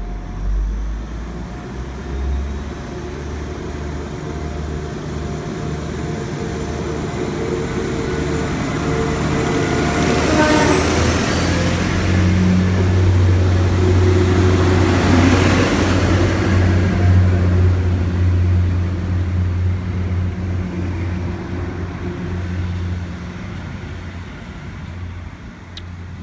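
Class 175 Coradia diesel multiple unit pulling away from the platform. Its underfloor diesel engines rev up about ten seconds in, and a high whine rises and then holds. The engine sound grows loudest as the cars go past, then fades as the train draws away.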